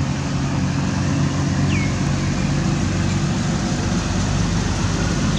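Steady outdoor background rumble and hiss with a low hum underneath. One short, high squeak drops in pitch just under two seconds in.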